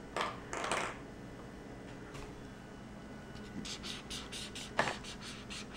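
Felt-tip marker scribbling back and forth on drawing paper: a quick run of short, scratchy squeaks, several strokes a second, starting a few seconds in, with one sharper tap among them.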